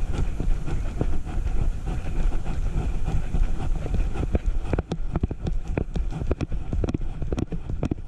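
Low rumbling and rubbing of a camera strapped to a walking dog's back. About halfway through, quick irregular clicks and taps join in.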